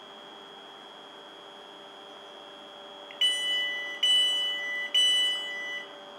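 Class 450 Desiro electric multiple unit's door warning sounding three long beeps, each two high tones together, over a steady high whine.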